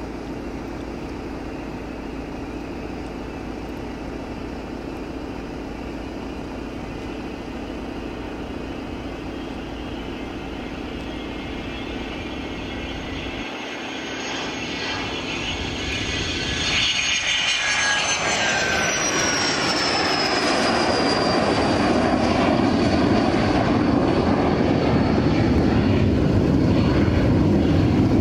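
Learjet 75 twin turbofan engines at take-off power: a steady whine as the jet rolls down the runway. About halfway through it passes close with a whistle that falls in pitch, then a rumble grows louder as it climbs away.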